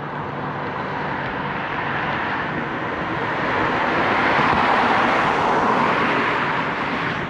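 A passing road vehicle: tyre and road noise that swells slowly to a peak about four to six seconds in and then eases off.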